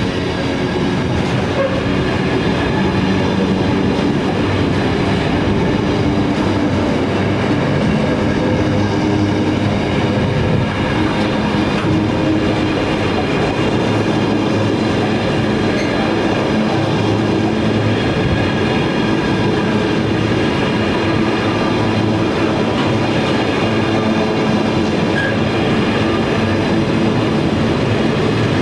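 A train running past, a steady loud rumble of wheels on the rails that keeps on without a break.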